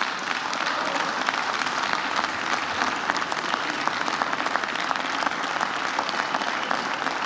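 Members of the House of Representatives applauding in the chamber, many hands clapping in a dense, steady patter.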